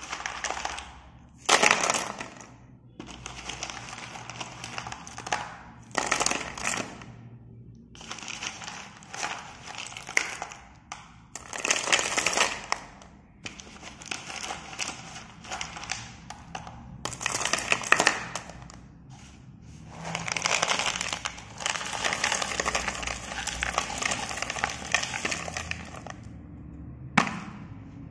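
Slate pencils clattering and grinding against one another in a plastic bucket as the pile is stirred, coming in repeated bursts a few seconds long with short pauses between.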